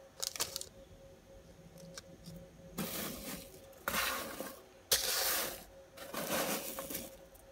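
A hand rummaging through freshly baked, crisp granola of oats, nuts and dried fruit: about five short, dry rustling bursts.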